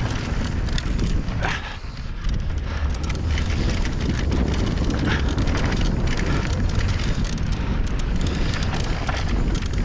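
Mountain bike riding down a dirt trail: wind buffeting the microphone over the roll of the tyres on dirt, with scattered clicks and knocks from the bike and the ground.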